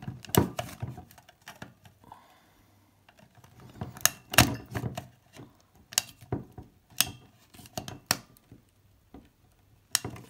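Flat-blade screwdriver prying at a hard plastic BottleLox security cap on a whisky bottle: irregular sharp clicks and knocks of the metal tip against the plastic. The loudest cluster comes about four seconds in.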